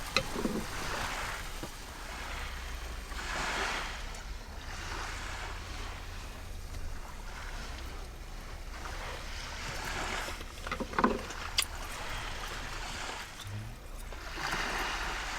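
Sea waves washing onto a beach, swelling and falling back every few seconds, over a low rumble of wind. A few short clicks come about eleven seconds in.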